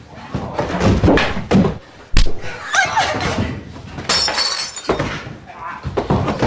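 A run of synthetic sound effects: a string of sudden crashing, breaking hits, one sharp loud hit about two seconds in, and a brief gliding zap near three seconds.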